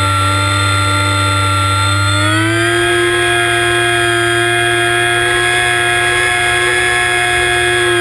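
The ParkZone Icon A5 RC seaplane's brushless electric motor and pusher propeller running, heard close up from the onboard camera. It is a steady whine that steps up in pitch a couple of seconds in as the throttle is raised, then holds.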